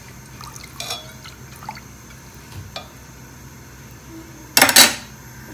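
Water sloshing in a stainless-steel pot as vermicelli is stirred with a steel slotted spoon, with a few faint clinks of the spoon, and one louder swish of about half a second near the end.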